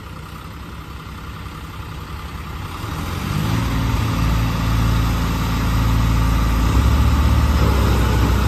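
Diesel engines of a John Deere 5210 and a New Holland 3630 tractor straining against each other in a chained tug-of-war, running steadily and then growing much louder from about three seconds in as they are pushed to full load.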